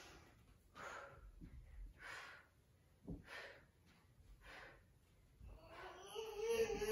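A woman's hard breathing during weighted squats and lunges: short, faint exhalations about once a second. Near the end a toddler's babbling voice comes in.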